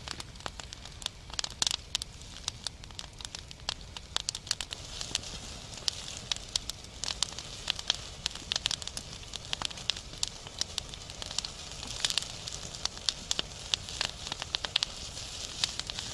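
Salo (pork fat) frying with onion over a campfire: a steady sizzle with many irregular sharp pops and crackles as the fat spits.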